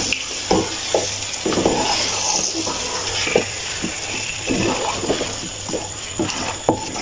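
Wooden spatula stirring and scraping beef pieces in masala and yogurt around a non-stick pot, with irregular knocks against the pot over a sizzling hiss as the meat is browned (bhuna).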